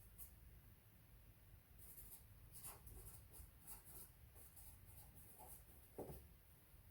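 Near silence: faint, scattered light clicks and scrapes of handling, with one slightly louder knock about six seconds in.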